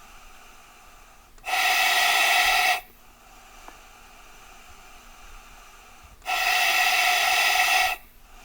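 Fire truck air horn sounding two steady blasts of one pitch, the first just over a second long and the second a little longer, about five seconds apart, over a steady low hiss.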